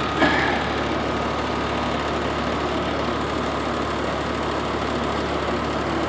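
Nordyne heat pump outdoor unit running steadily in cooling mode, its compressor and condenser fan giving a constant hum.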